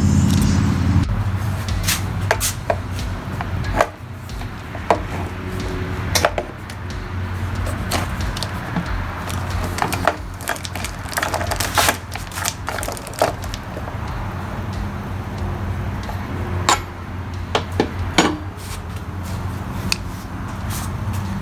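Scattered clicks and knocks of a Featherlite string trimmer's old line head being unscrewed and handled, hard parts tapping and rattling, over a steady low hum.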